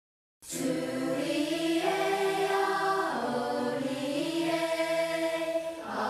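Soundtrack music: a choir singing long held notes in two phrases, starting about half a second in.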